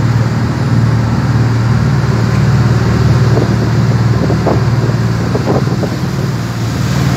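Boat engine running steadily with a low drone, over the rushing water of the churning wake.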